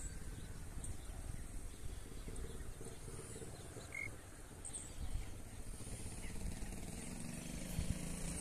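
Wind rumbling on the microphone, with a few faint bird chirps and a distant motorcycle engine growing louder in the second half.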